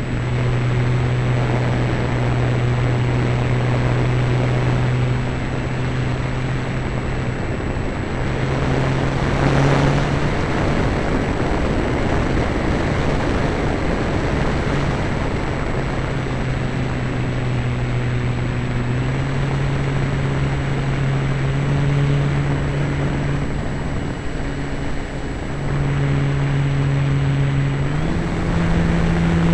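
Motor and propeller of a radio-controlled model Cessna, heard from its on-board camera: a steady drone that steps up and down in pitch several times, over a constant rush of wind noise.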